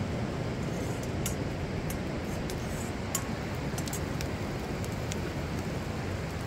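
Steady rushing noise of wind and flowing river water, heaviest in the low range, with scattered faint ticks.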